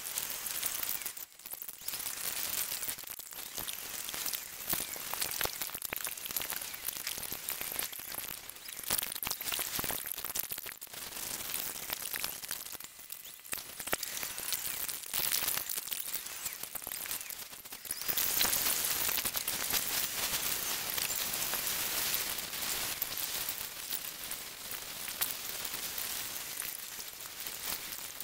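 Road noise inside a moving car, played back sped up so it turns into a crackling high hiss. It dips briefly a couple of times and gets louder about two-thirds of the way through.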